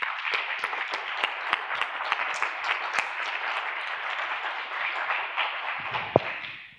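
Audience applauding: a dense, steady patter of many clapping hands that dies away near the end, with one brief sharper sound just before it fades.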